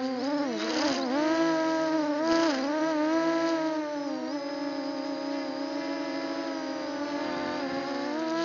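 MJX Bugs 6 quadcopter's motors and propellers whining in flight, heard from its onboard camera. The pitch holds steady but dips briefly and recovers several times in the first half as the throttle is eased and opened again.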